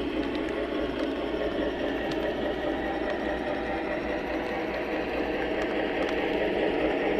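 O gauge flat car's metal wheels rolling along model railway track, heard from the car itself: a steady rumble with faint clicks, growing a little louder near the end.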